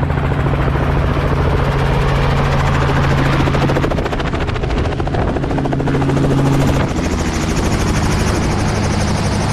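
Helicopter running close by: a steady rotor chop over the engine's hum, whose pitch shifts about four seconds in and again about seven seconds in.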